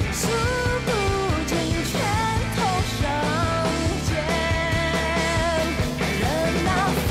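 A song playing: a sung melody over a band with drums and bass.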